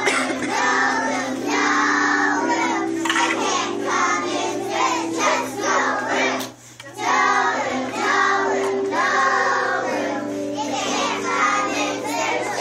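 A group of young children singing together over accompaniment music, with a short pause between phrases about six and a half seconds in.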